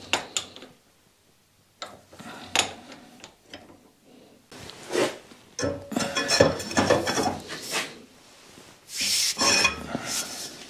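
Clanking and scraping of metal on metal as a long steel pipe is slid over a steel bar clamped in a bench vise and levered to bend the bar.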